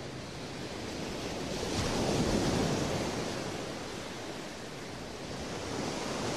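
Ocean surf: waves breaking on a beach. The wash swells about two seconds in, eases off, and builds again near the end.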